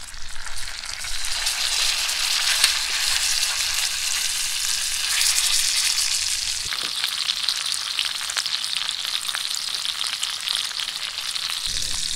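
A splake, seasoned with a rub, sizzling in hot butter in a frying pan on a propane stove: a steady hiss full of small crackles and pops, which swells about a second in.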